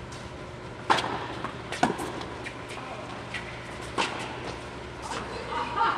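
Tennis ball being hit by racquets and bouncing on the court in a doubles rally: a few sharp pops that echo in the enclosed indoor court, over a steady low hum.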